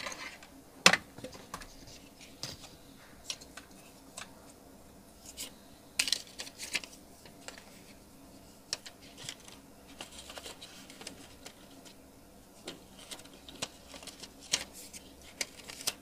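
Scattered light clicks and taps of small hand tools and parts being handled on an electronics repair bench. The sharpest click comes about a second in, with small clusters of taps around the middle and near the end.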